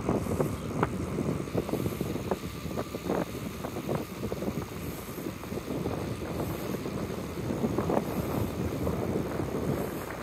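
Wind rushing over the microphone of a camera carried on a moving bicycle, a steady low rumble with a few light clicks scattered through it.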